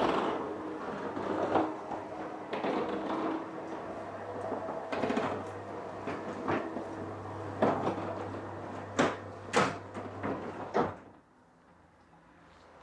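Roller shutter garage door moving with a steady hum and rattle, a few sharp knocks near the end, then stopping abruptly about eleven seconds in.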